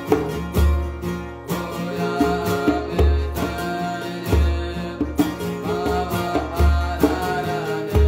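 Music: a chant sung to a plucked string instrument, with deep low notes falling about every one and a half seconds.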